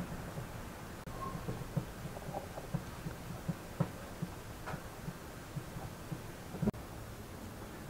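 Soft, irregular thuds of a ball of dough being kneaded and pressed against a floured wooden board, several a second, with one louder knock near the end.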